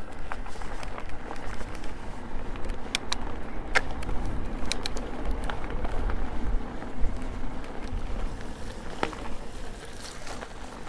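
Electric mountain bike being ridden along a lane: a steady rumble of tyres and wind on the microphone, broken by several sharp clicks and rattles as the bike jolts over the surface.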